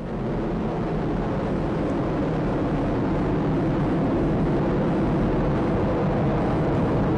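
Atlas V rocket engines climbing after liftoff: a steady, dense rumble.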